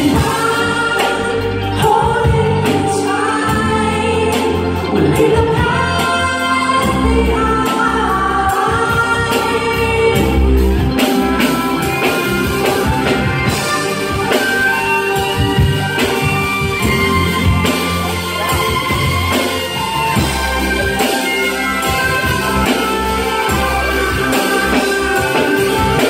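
Live band playing a song: singing and a violin melody over drums and a bass line.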